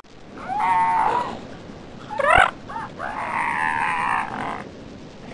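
African elephants calling: three pitched calls, a short one about half a second in, a quick warbling one just after two seconds, and a longer one about three seconds in.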